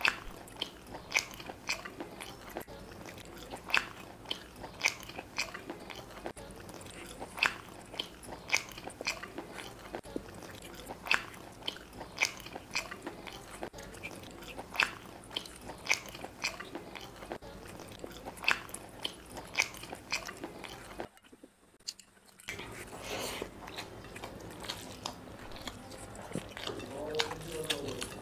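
Close-up eating sounds of a person chewing chicken curry and biryani: wet, sticky mouth clicks and lip smacks, one or two a second. The sounds break off briefly about three-quarters of the way through.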